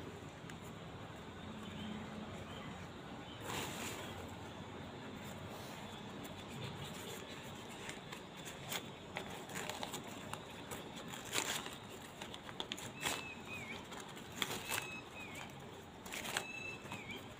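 Newspaper wrapping being pulled open and crumpled by hand, crinkling and crackling in short bursts. From about two-thirds of the way in, a small bird chirps faintly several times.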